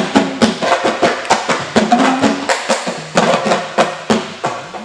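Senegalese sabar drumming in a fast, dense mbalax rhythm of sharp strokes, stopping right at the end.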